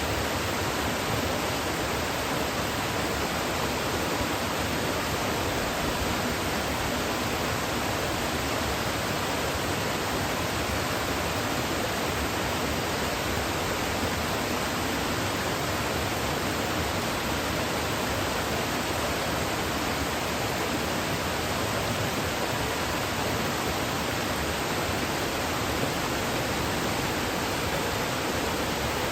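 Waterfall pouring steadily, an even rushing noise of falling water with no change.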